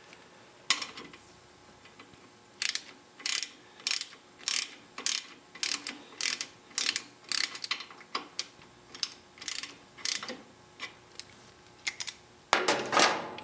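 Socket ratchet clicking in short strokes about twice a second as it runs the oil drain plug of a 2009 Harley-Davidson Softail back in, with a louder, longer burst of ratcheting near the end.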